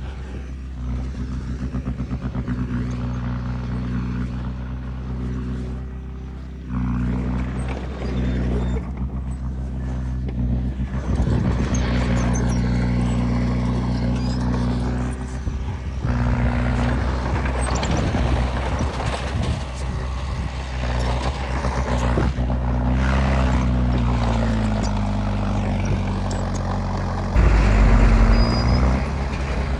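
Heavy diesel engines of earthmoving machinery running steadily at a low, even note, with scattered metallic clanks and knocks. The engine note rises and falls briefly about two-thirds of the way through. The overall sound shifts abruptly several times.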